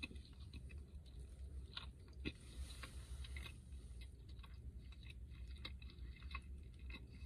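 A person chewing a mouthful of fried pie with liver filling: many soft, irregular mouth clicks over a low steady rumble.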